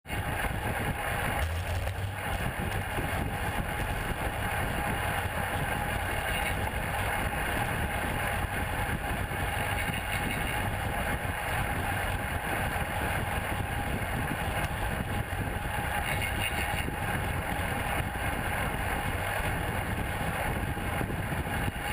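Steady wind rush on a GoPro camera riding on a road bike at speed, with road noise from the tyres on asphalt beneath it.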